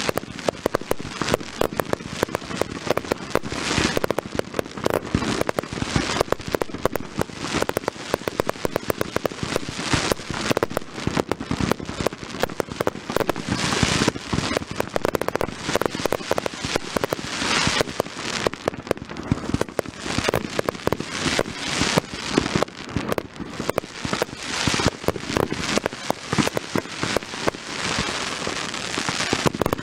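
Fireworks going off in quick succession: a near-continuous stream of bangs and pops, with stretches of dense crackling.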